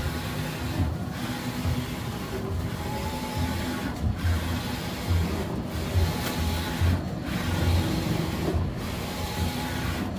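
Large-format tarpaulin inkjet printer printing: a steady mechanical whir from the print-head carriage sweeping across the vinyl, with a pulsing low hum and a brief lull about every second and a half between passes.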